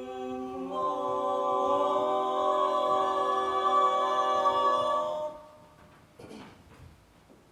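Male a cappella group singing a sustained chord, more voices joining about a second in, held for about five seconds and then cut off together. A few faint clicks follow.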